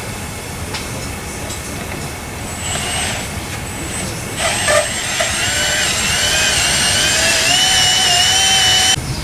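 Drill bit boring into a steel wheel stud: a steady grinding noise, then from about four seconds in a high, wavering squeal of the bit cutting metal, which stops abruptly near the end.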